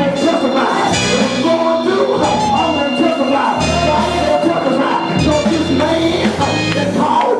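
Live gospel music in a church: a band playing with singing, loud and steady.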